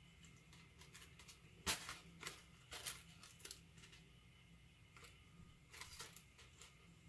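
Faint scattered crackles and clicks of hands handling and flexing a small foam RC airplane's wing and fuselage, with the sharpest click a little under two seconds in.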